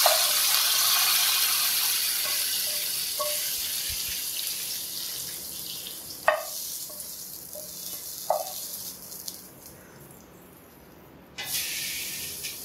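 Hot coconut-oil tempering of mustard seeds, fenugreek, dried red chillies and curry leaves sizzling as it is poured into the mango and buttermilk curry: a loud hiss that slowly dies down, with a few short knocks along the way and a fresh burst of hiss near the end.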